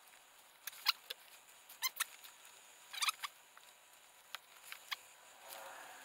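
Crimping pliers and plastic crimp connectors handled while wiring: a string of sharp clicks and short squeaks in small groups, about one, two and three seconds in and again near five seconds.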